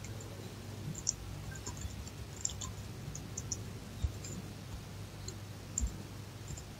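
Computer keyboard keys clicking in scattered, irregular keystrokes as a line of text is typed, over a low steady hum.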